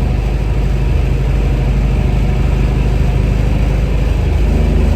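The Nova's 383 V8 running steadily while driving, its note stepping up slightly near the end.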